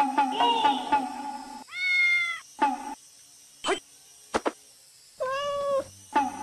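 A cat meows twice, one long call about two seconds in and another about five seconds in, with a few short sharp sounds between. A rhythmic tune plays for the first second and a half.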